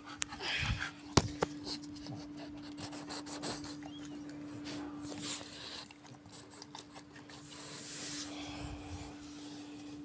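Handling noise on a phone microphone: rubbing and scraping as the phone is moved about, with a few sharp knocks in the first second and a half, over a steady faint hum.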